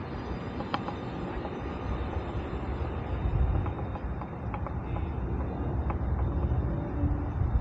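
Steady outdoor background noise with an uneven low rumble that swells about halfway through, and a few faint ticks.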